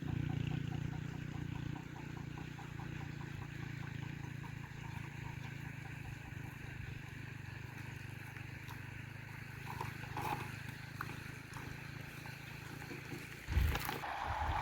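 A steady low engine hum, with a brief louder bump near the end.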